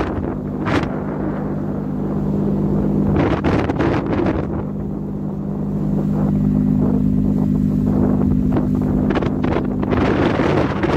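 Ship's engine running with a steady low hum during berthing, with wind buffeting the microphone in short gusts.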